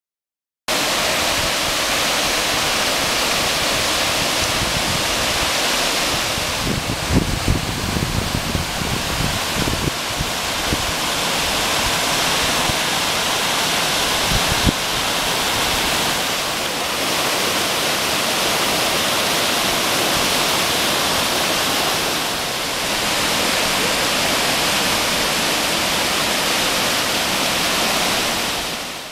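Waterfall cascading over mossy rocks into a pool: a steady, loud rush of falling water, with a few low bumps on the microphone about seven to ten seconds in.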